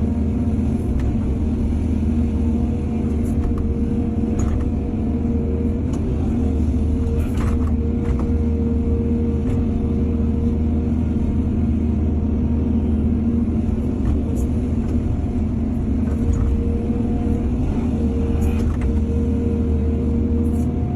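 Excavator's diesel engine running steadily under work with a constant low hum and a steady whine, with a few short knocks and clanks scattered through it.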